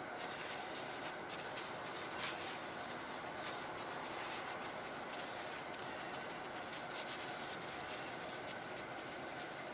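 Steady hand rubbing on an acrylic headlight lens, with faint scattered ticks and one slightly louder tick about two seconds in.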